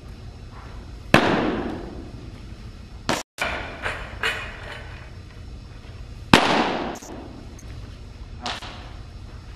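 A baseball smacking into a catcher's mitt twice, about five seconds apart, each sharp crack ringing in an echoing indoor training room. Smaller knocks come between the two catches, and a lighter knock near the end.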